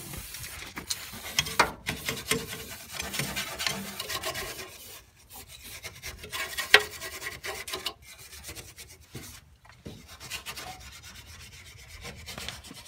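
A hand tool scraping and scrubbing the freshly welded steel patch on a kei truck's chassis frame in irregular strokes, busier in the first few seconds and thinner after a short pause.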